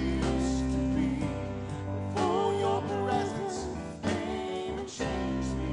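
Live worship band playing a slow song: sustained keyboard chords and a low bass under a singer's voice.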